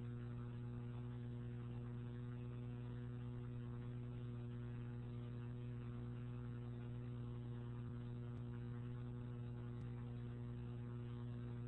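Steady electrical mains hum: a low drone with a stack of evenly spaced overtones, unchanging throughout.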